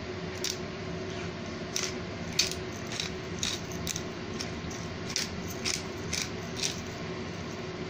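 Hand pepper grinder being twisted to crack black peppercorns: short crunching clicks, about two a second in runs, over a steady low hum.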